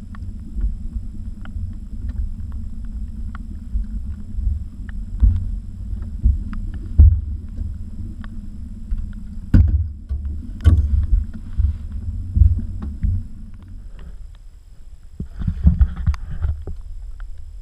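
Steady low hum aboard an aluminium fishing boat, broken by repeated knocks and thumps as a landed northern pike is netted and handled in the boat. Near the end there is a splash as the fish goes back into the water.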